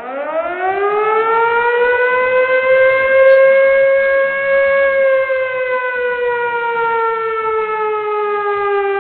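A siren wail: one long tone that climbs over the first two seconds, holds, then slowly sinks in pitch.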